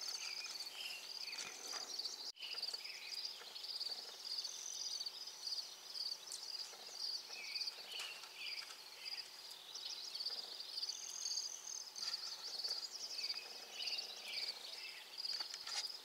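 Insects trilling steadily, a fast pulsing high-pitched chirr that keeps going throughout.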